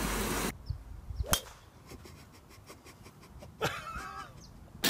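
Water splashing loudly for about half a second, then a quiet outdoor background with two sharp knocks a little over two seconds apart; the second rings briefly.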